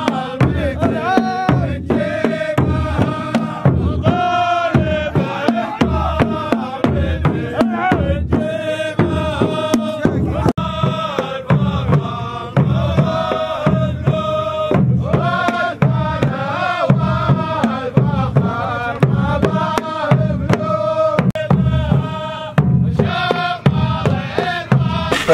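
Men chanting together in a traditional Saudi sword-dance song, over a steady beat on large hand-struck frame drums.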